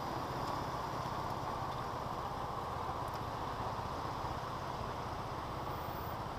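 SYM scooter's engine running steadily at low speed, under a steady rushing noise of air and road.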